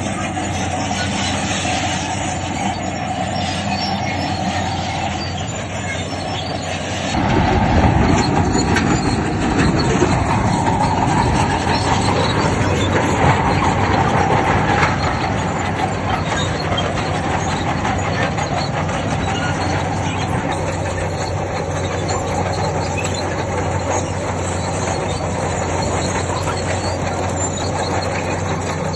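Bulldozer diesel engine running with its steel crawler tracks clanking and grinding. About seven seconds in, the engine note turns heavier and louder for around eight seconds, as under load, then settles back to a steady run.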